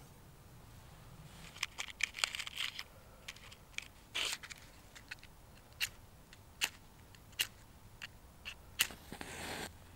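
Metal clinks and scrapes from a folding steel twig stove being set into loose soil, followed by scattered sharp clicks and short scrapes of fire-lighting tools handled over wood shavings, with a longer scrape near the end.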